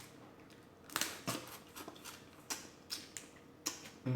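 Shellfish shells clicking and crackling as they are handled and cracked open to get at the meat, in a handful of sharp snaps spread over a few seconds.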